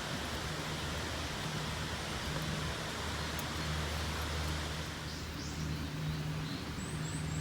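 Steady outdoor rushing noise with a low, steady droning hum underneath, and a few faint, short bird chirps near the end.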